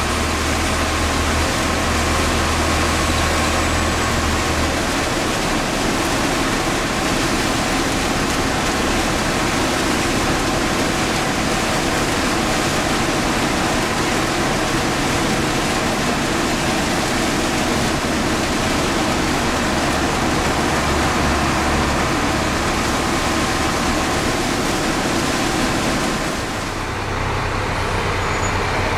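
Steady engine and road drone inside a moving fire engine's cab, dipping briefly in loudness near the end.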